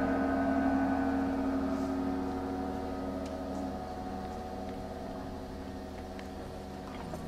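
The final held chord of an ambient music piece dying away: several steady sustained tones fading slowly over a low steady hum.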